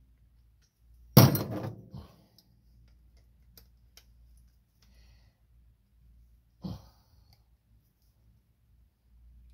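A sharp knock about a second in, ringing briefly, then a few faint clicks and a second, softer knock near seven seconds: tools or parts being handled and set down during fuel pump work.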